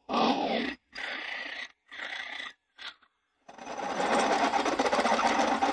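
Pillar drill power-tapping a 9/16 UNF thread into a steel leaf-spring shackle plate, sped up to four times speed: four short bursts of the drill and tap, then from about halfway a continuous fast mechanical run as the tap cuts.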